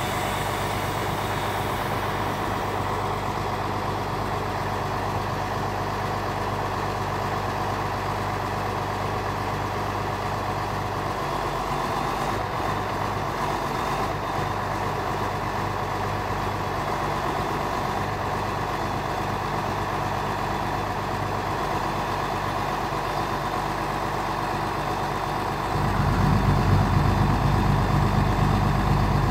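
1996 RoGator self-propelled sprayer's diesel engine running steadily at idle while its hydraulic spray booms unfold. About 26 seconds in the engine gets louder, with more low rumble.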